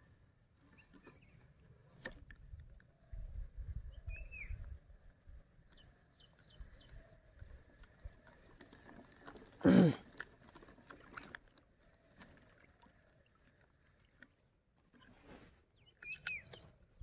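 Outdoor ambience with scattered bird chirps and a few seconds of low rumble, with one short, loud pitched call about ten seconds in.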